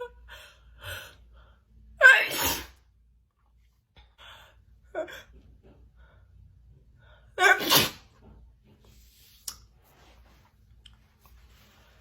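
A woman's sneezing fit: two loud sneezes about five seconds apart, the first about two seconds in and the second near eight seconds, with quieter short sounds between them.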